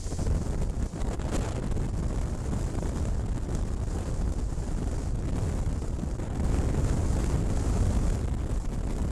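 Wind rushing over the microphone of a helmet-mounted camera on a moving motorcycle, with the bike's engine and road noise underneath. It swells a little about two-thirds of the way through.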